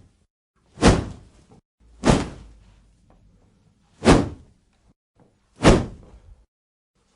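Four powerful whoosh sound effects, each a short, sharp rush that hits hard and fades quickly, spaced one to two seconds apart.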